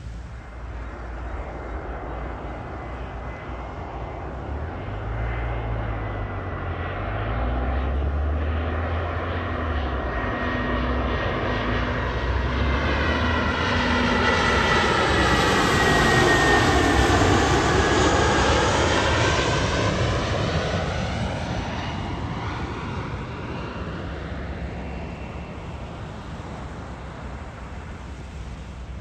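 Airliner flying low past on its landing approach: engine noise builds to a peak about halfway through and then fades, with a high whine that drops in pitch as it goes by.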